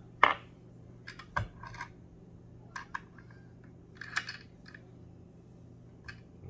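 Scattered sharp clicks and taps of fly-tying tools and scissors being picked up and handled at the vise, the loudest about a quarter second in, with a tight cluster a little past the midpoint.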